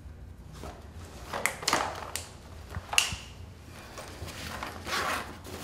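Handling noises of a bag being searched and a small cardboard pregnancy-test box being taken out: several scraping rustles, a sharp click about three seconds in, then more rustling near the end.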